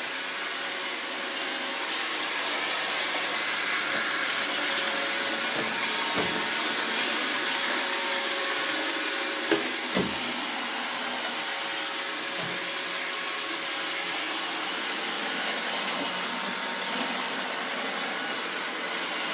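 iRobot Roomba robot vacuum running with a steady whirring hiss, with two short knocks about halfway through.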